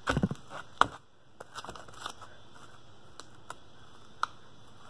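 Heavy slime being stretched by hand and dropped onto a wooden table: a soft thump at the start, a sharp click just under a second in, then scattered faint crackles and pops as it is worked.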